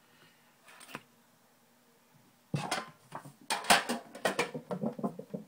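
Handling noise: a quick run of clicks and clatter from small objects being moved about by hand, starting about two and a half seconds in after a near-silent pause.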